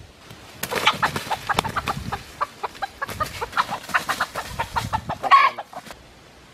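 Wild junglefowl rooster clucking in a rapid, irregular run of short notes, with one louder squawk about five seconds in before it stops.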